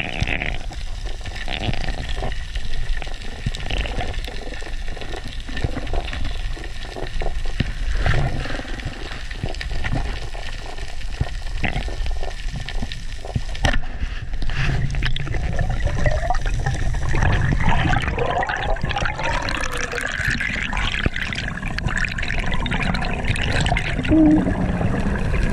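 Underwater sound picked up by a diver's action camera: water rushing and gurgling around the camera, with scattered clicks. In the second half, wavering squeaky tones rise and fall.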